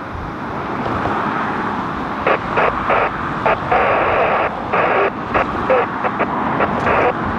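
Steady rushing noise of wind and a twin-engine jet airliner climbing overhead. From about two seconds in, an airband radio scanner cuts in and out with a run of short bursts of static.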